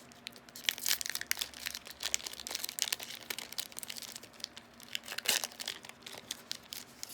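Yu-Gi-Oh! booster pack wrapper being torn open and crinkled by hand: an irregular run of sharp crackles and rustles.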